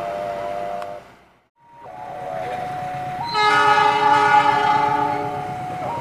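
A GE CC206 diesel-electric locomotive's horn sounds one long blast of about two seconds, starting about three seconds in, as the train approaches. Before it there are steady pitched tones, and the sound drops out for a moment after about a second.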